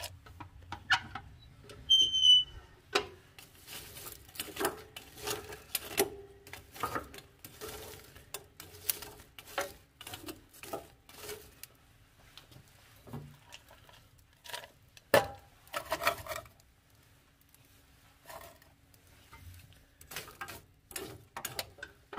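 Irregular metal clanks, knocks and scrapes as a solid-fuel boiler's firebox door is opened and a steel rod rakes the burning coal and sets a steel can of aluminium scrap into the fire. A short high squeak comes about two seconds in.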